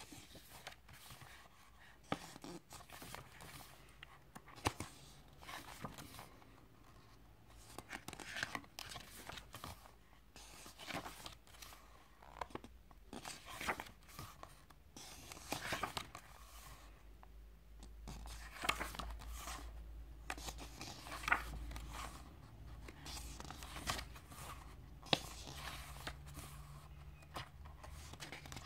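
Pages of a photobook being turned and handled by hand: irregular paper rustles and flaps throughout, faint overall.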